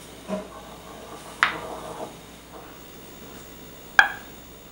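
Metal canning-jar lids popping as they seal on the cooling jars: two sharp, short metallic pings about two and a half seconds apart, with a fainter tap near the start. Each pop is the lid being pulled down by the vacuum, the sign that the jar has sealed.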